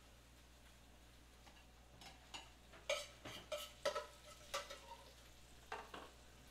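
Metal tongs clinking against a stainless steel sauté pan and a plate while sautéed spinach is served out. After about two seconds of quiet comes a quick run of sharp metallic clinks, some ringing briefly.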